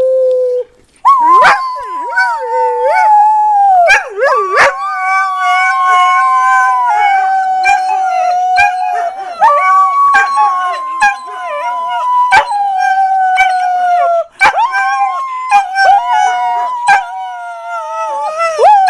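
Greyhounds rooing together: long, howl-like held notes that slowly sag in pitch, one voice over another, with a brief gap about a second in.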